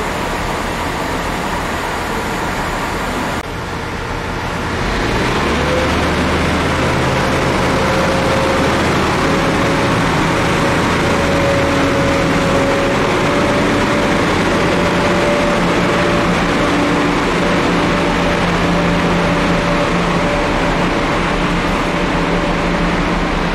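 Diesel train engine running steadily and loudly. A few seconds in, the sound changes abruptly, then a low engine hum settles in with a steady pitched tone held over it.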